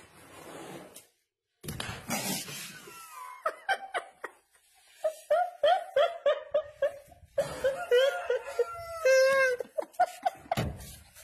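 A person laughing hard in quick, repeated bursts of "ha" from about five seconds in, after a short stretch of noisy commotion.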